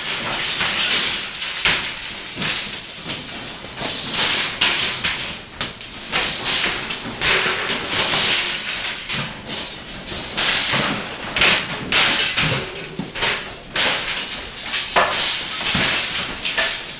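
Continuous rattling and clattering of metal rods, poles and stored junk being shaken, with many sharp knocks and bursts of noise.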